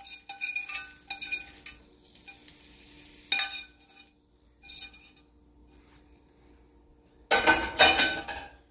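Stainless steel bowl clinking and ringing as it is handled, a few quick knocks in the first second or so, then single clinks about three and nearly five seconds in, over a faint steady hum. Near the end comes a louder stretch of clatter and scraping lasting about a second.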